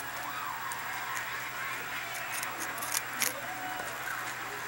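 Lop-eared rabbit biting and chewing a raw carrot: irregular crisp crunches, sometimes two in quick succession.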